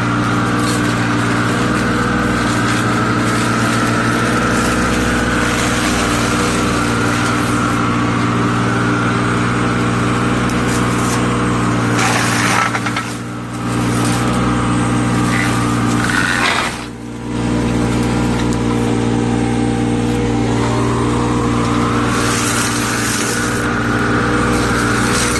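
Excavator engine running steadily under work, with a high hydraulic whine that sinks and rises again. The sound drops briefly twice, a little after the middle.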